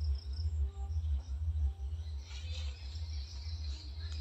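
Insects trilling in rural vegetation: faint high chirps at first, then a steadier high-pitched trill from about halfway through. Under it runs a low, uneven rumble on the microphone, which is louder than the insects.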